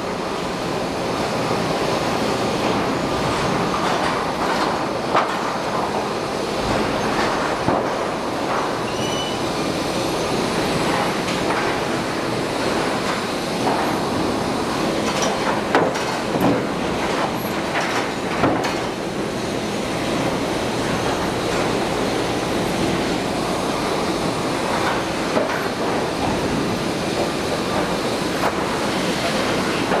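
Sawmill machinery running inside the mill, with the loud, steady clatter of lumber-handling equipment moving boards and occasional sharp knocks.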